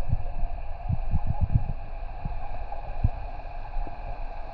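A boat motor running steadily with a droning tone, under irregular low thumps; it begins to fade near the end.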